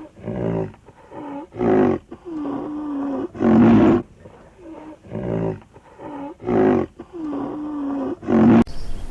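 A big cat roaring in a repeated series of loud calls alternating with longer, lower calls. The roaring cuts off abruptly near the end.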